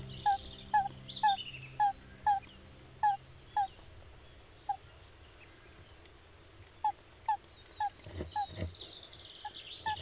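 Tawny owl chicks cheeping in the nest box: a series of short, falling peeps about two a second, with a pause in the middle. A few soft knocks and scuffles near the end as the brooding female shifts on the wood shavings.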